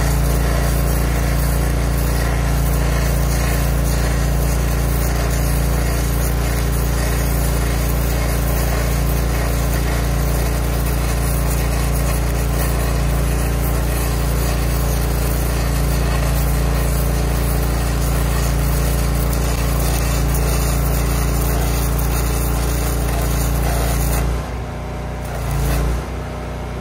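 Electra AAA airless arc gouging rod burning on DCEN against a steel excavator bucket's cutting edge: the arc gives a steady, loud crackling hiss as it blows out metal, breaks off about 24 seconds in, and is struck again briefly near the end. A steady engine hum from the truck-mounted welder runs underneath.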